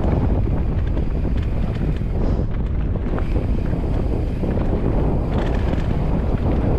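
Wind rushing over the camera microphone on a fast mountain-bike descent, over the sound of tyres rolling on a dirt trail and many small rattles and clicks from the bike over bumps.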